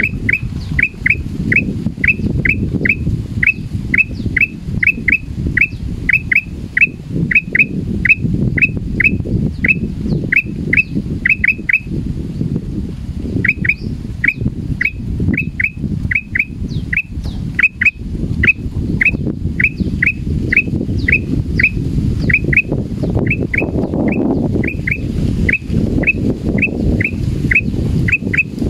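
Male black-crested bulbul giving short, sharp whistled notes over and over, about three a second, with a brief pause about twelve seconds in: a run of alarm calls, which the uploader takes for fright. Under it runs a constant low rumble.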